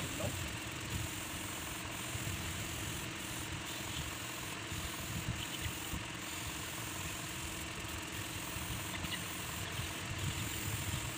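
An air compressor feeding an airbrush runs steadily, a constant motor hum under an even hiss.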